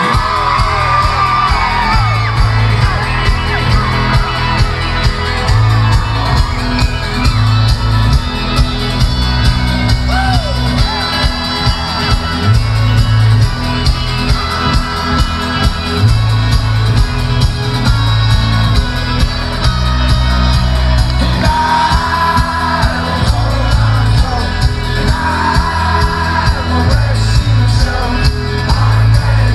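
Folk-rock band playing live through a large outdoor stage PA, loud, over a steady pulsing bass-drum beat. Crowd shouting and singing along close to the microphone.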